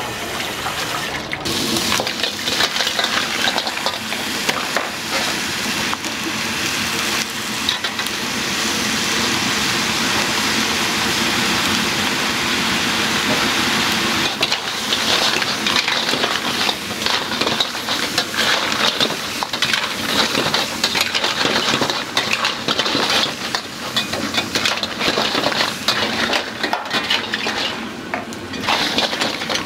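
Food sizzling and frying in a hot wok, with a steady stretch of sizzling in the middle, then many quick metal clanks and scrapes of cookware against the wok.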